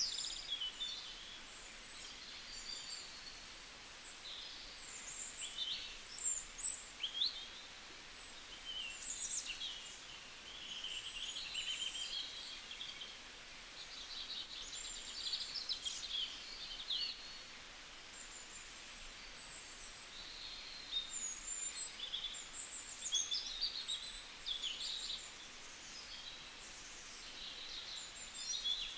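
Several songbirds chirping and trilling, short quick calls overlapping one another, over a steady background hiss.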